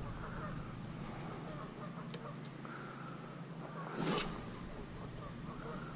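Quiet open-water ambience with distant waterfowl calling faintly now and then, a single sharp click about two seconds in and a short swish about four seconds in.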